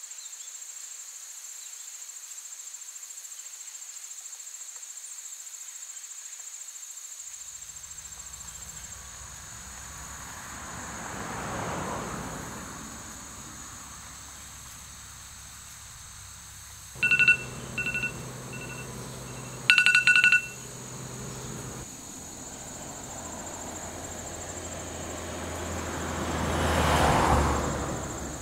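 Quiet ambience with a steady high tone and a low hum, broken about two-thirds through by loud electronic beeping: a short beep, two quicker short ones, then a longer beep. Two slow swelling whooshes rise and fall, one in the middle and a louder one near the end.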